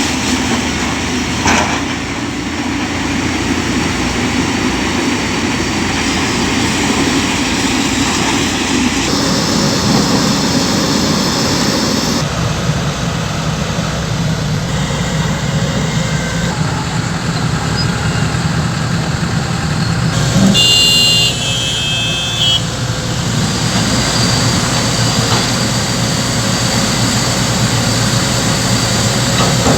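Heavy excavator diesel engines running under load with hydraulic working noise, changing abruptly several times as clips are spliced together. About two-thirds of the way through comes a short, high beeping tone like a horn or warning signal.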